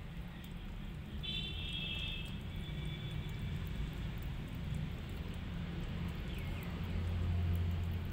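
Low, steady outdoor background rumble, growing a little louder near the end. A brief high, steady tone comes about a second in, and a short falling chirp past the six-second mark.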